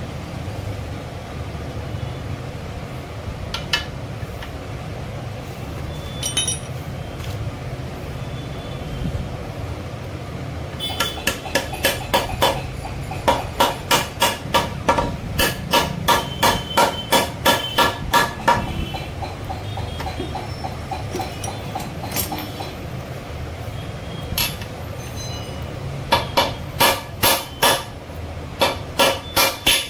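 A hammer strikes a metal tube drift to drive a bearing into the bore of a Royal Enfield Bullet's aluminium crankcase half. Sharp metallic taps come about two to three a second: a long run from about a third of the way in, then two shorter runs near the end, over a steady low hum.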